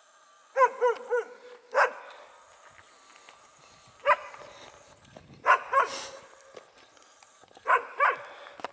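Dogs barking in short groups of one to three barks, about nine barks in all, with pauses of a second or more between groups.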